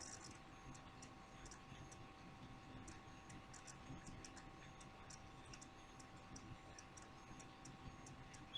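Near silence: faint room tone with a steady faint hum and scattered faint, light ticks and clicks.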